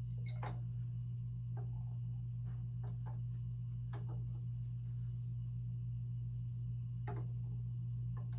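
A steady low hum, with a scattering of faint clicks and light glass taps as test tubes and a small glass vial are handled in an acrylic test-tube rack.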